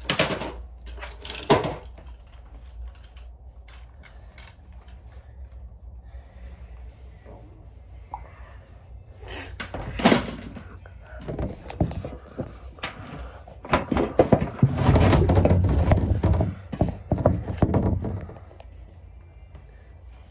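Handling noise close to the microphone: sharp knocks near the start and again about halfway, then a few seconds of rubbing and bumping near the end as someone moves right up against the phone.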